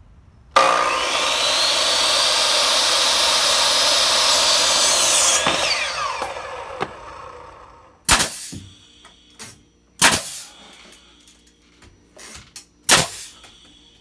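A Ryobi miter saw spins up with a rising whine, runs through a cut in a wooden block, then winds down with a falling whine. Later an air-powered nail gun fires three separate shots a couple of seconds apart, driving nails into the wooden framing blocks.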